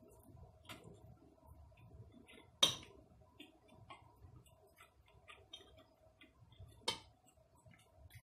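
Metal spoon clinking against a ceramic plate while eating: two sharp taps about four seconds apart, with faint small ticks between them.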